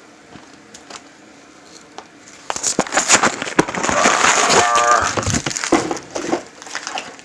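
Crinkling and tearing of a plastic cake-mix bag being opened, starting about two and a half seconds in, with a quick rip near the middle.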